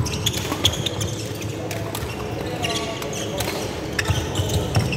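Badminton rally in a sports hall: a string of sharp racket hits on the shuttlecock, about one a second, with players' footsteps and shoes on the wooden court floor, echoing in the hall.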